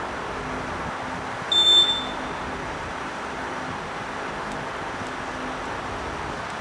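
A short, loud, high-pitched electronic beep about a second and a half in, lasting about half a second: the siren start signal of an auditory reaction-time test. A steady hiss runs underneath.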